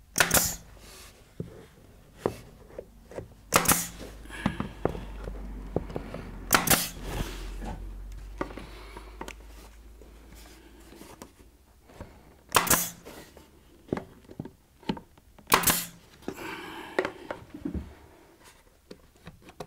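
Brad nailer driving small brads into wooden packer pieces: five sharp shots, a few seconds apart, with lighter clicks and knocks of handling the wood between them.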